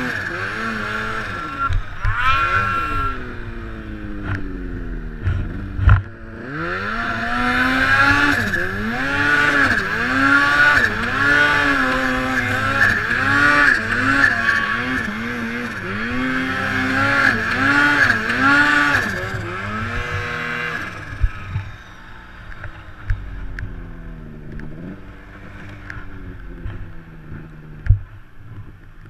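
Turbocharged Arctic Cat M8 two-stroke snowmobile engine revving up and down over and over under load in deep snow, about one rev a second through the middle. It eases back to a lower, quieter run a few seconds from the end.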